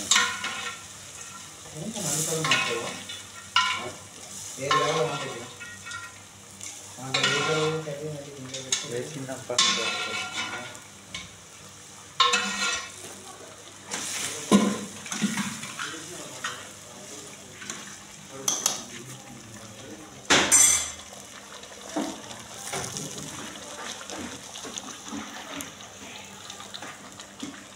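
A metal spoon scrapes and clinks against a large aluminium pot as cooked curry is scooped out into a pot on a gas burner, over a steady sizzle from the pot on the flame. People talk at times, mostly in the first half.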